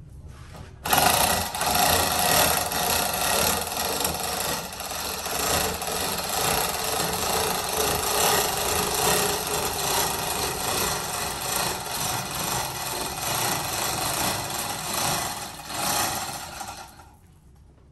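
Manual chain hoist being worked by hand: the steel chain rattles and clatters continuously through the hoist as the hung boat hull is shifted. It starts suddenly about a second in, swells and eases with the pulls, and stops near the end.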